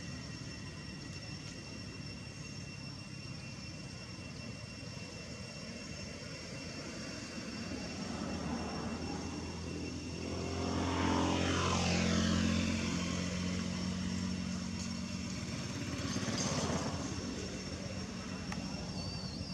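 A motor vehicle passing by. Its engine grows louder from about eight seconds in, peaks around twelve seconds and drops in pitch as it goes past. A second, briefer pass comes near sixteen seconds, over a steady high-pitched background whine.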